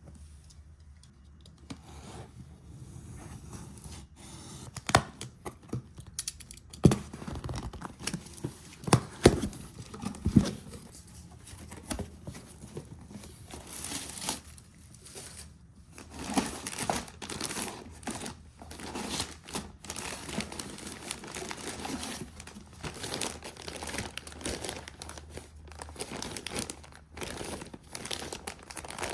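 Packaging being torn open and handled: tearing and crinkling of wrapping, with a few sharp knocks in the first half.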